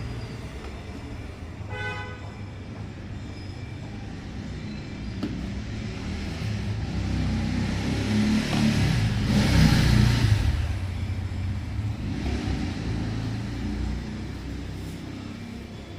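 Road traffic over a steady low hum: a short horn toot about 2 seconds in, then a vehicle passing, growing louder to a peak around the middle and fading away.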